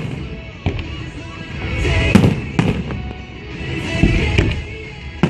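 Fireworks display: aerial shells bursting in several sharp bangs, about four in five seconds, amid swelling rumble and crackle, with music playing underneath.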